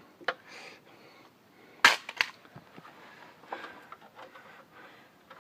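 Two loud, sharp clacks about half a second apart, a little under two seconds in, with lighter clicks and knocks before and after, from carpentry tools being handled at a soffit and trim job.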